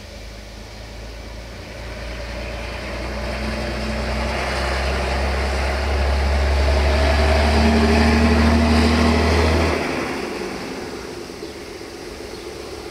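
Roman Diesel dump truck's diesel engine running and building up to a steady, louder drone as the tipper body is raised to dump its load, with a rushing noise over it. The engine drops back sharply about ten seconds in.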